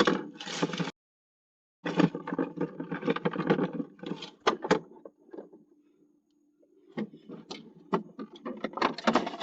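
Doorbell-camera audio of scattered clicks, knocks and rustling as an unlocked car is opened and gone through, the sound thin with no low end. It drops out to dead silence for about a second near the start, and a faint steady hum is heard in the middle.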